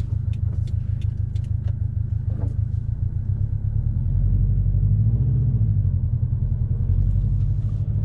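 Subaru WRX STI's turbocharged flat-four, fitted with an aftermarket intake and tune, running on the road as heard from inside the cabin: a steady low drone that swells and briefly rises and falls in pitch around the middle. Light ticking in the first couple of seconds.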